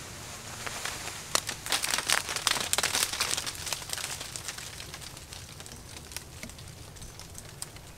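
Crinkling, crackling rustles. They are densest from about one to three and a half seconds in, then thin out to scattered clicks.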